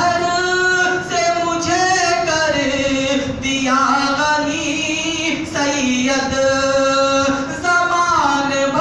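A man singing a manqabat, an Urdu devotional poem in praise of Gareeb Nawaz, solo and unaccompanied, in long held notes that bend and glide between phrases.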